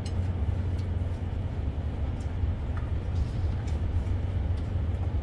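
A steady low rumble underlies the whole stretch, with a few faint clicks of chopsticks against rice bowls.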